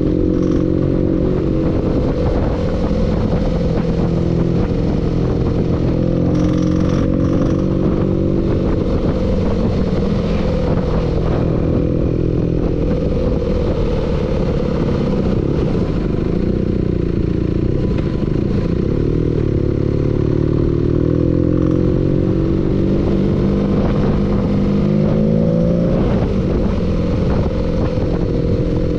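Engine running steadily with a knock, its speed drifting up and down a little.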